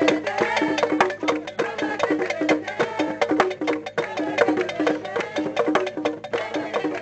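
Igala popular music: a busy, steady percussion pattern of sharp clicking strokes over a repeating short low note figure.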